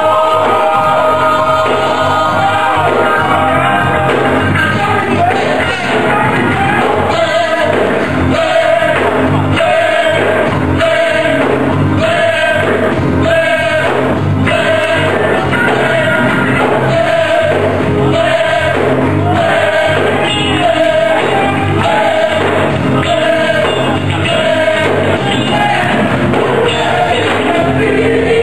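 Live gospel worship music: a church band plays a steady beat while voices sing over it.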